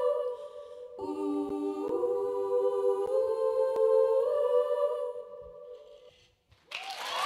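Closing held notes of a live song: a sustained sung chord that shifts a few times and then fades away about six seconds in. Audience applause breaks out near the end.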